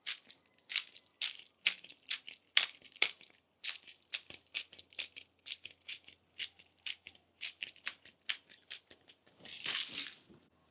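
Pepper grinder cracking peppercorns over raw salmon: a long run of quick, irregular crackling clicks, with a short louder rush near the end.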